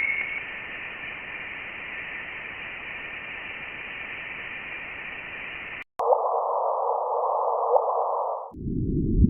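Space data sonifications played one after another: a steady hiss with a faint high tone that cuts off about six seconds in, then a narrower, lower rushing hiss over a steady low tone, switching near the end to a deep rumbling noise.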